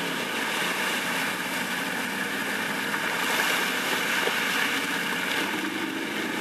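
ATV engine running at a steady speed under a steady rushing noise.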